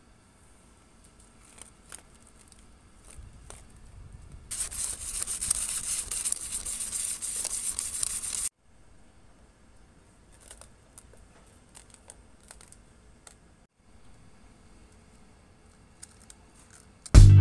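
Sandpaper rolled around a tube being rubbed over a clear plastic cup to roughen its surface: a steady scratchy rasp for about four seconds that cuts off suddenly. Before and after it, only faint clicks of the plastic being handled, and guitar music comes in near the end.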